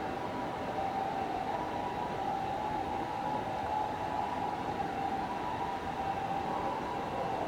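Emergency-vehicle siren sounding in the distance, holding a steady high pitch that bends a little near the end, over the low rumble of the train in the station.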